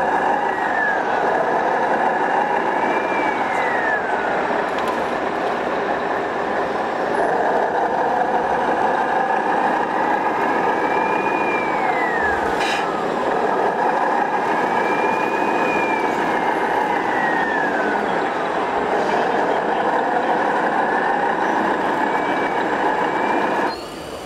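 Electric motors and gearboxes of radio-controlled model trucks and construction machines whining steadily, their pitch rising and falling several times as they speed up and slow down. The sound drops suddenly just before the end.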